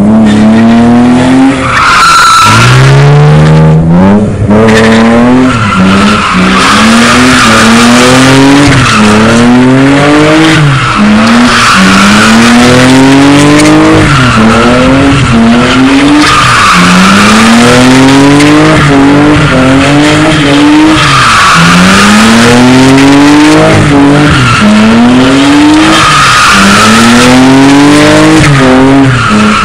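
BMW E36 3 Series coupe doing donuts: the engine revs in repeated rising sweeps, about one every one to two seconds, each falling back and climbing again, over continuous rear tyre squeal and skidding.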